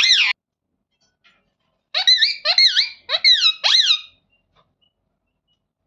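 Indian ringneck parrot calling: a short call at the start, then about two seconds in a run of four quick, high-pitched calls, each rising and falling in pitch.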